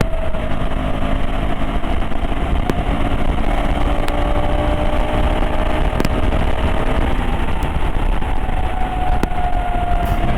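KTM 390 Adventure's single-cylinder engine running hard at highway speed, its note climbing slowly and changing about seven seconds in, over heavy wind rush on the microphone.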